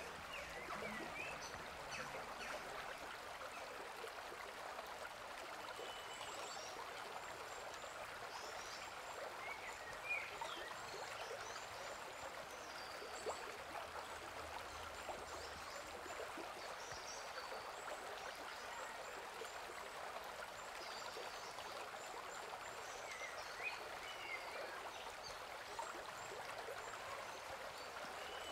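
Steady, faint rushing of a nearby stream, with short high chirps here and there, typical of small birds.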